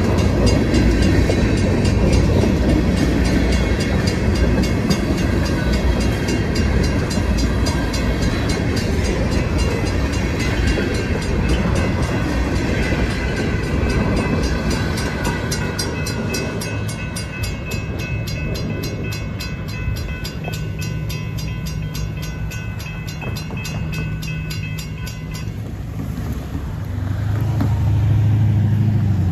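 Freight train tank cars rolling past a railroad grade crossing, steel wheels rumbling and clacking on the rails, the rumble easing in the second half as the last cars pass. Crossing bell ringing in a steady, even rhythm until it cuts off about 25 seconds in, then a car engine near the end.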